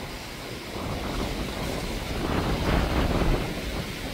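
Gusty storm wind buffeting the microphone, a steady rushing that swells into a louder gust a little past the middle.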